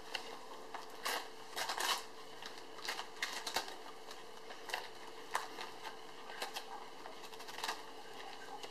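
Gift wrapping paper crinkling and tearing as a puggle noses and pulls at a wrapped present: irregular crackles and rips, busiest between about one and two seconds in.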